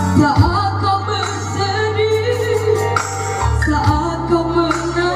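A girl singing a song into a microphone through a PA, accompanied by a Technics electronic arranger keyboard playing held chords and bass.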